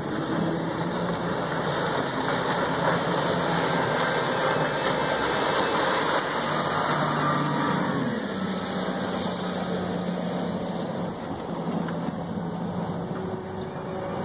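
Outboard boat engines running at speed over the rush of wind and water; about two-thirds in, a boat passes close by and its engine note drops in pitch as it goes past, then eases off as it pulls away.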